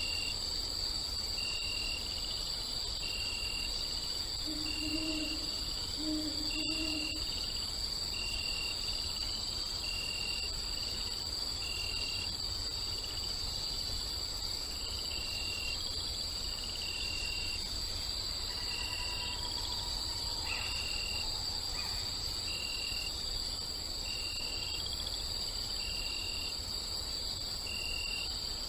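Nature ambience of crickets chirping steadily, with one chirp repeating about three times every four seconds. An owl hoots twice about five seconds in.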